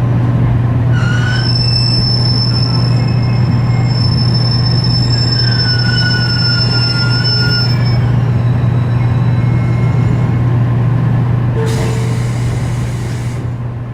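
Running sound inside a JR Kyushu 813 series electric train car with a Toshiba GTO inverter. A strong, steady deep hum is the loudest part, with thin high whistling tones over it, some gliding, and the sound fades out near the end. The recorder suspects a deep low rumble in this train's running sound may be an abnormal noise, though he is not certain.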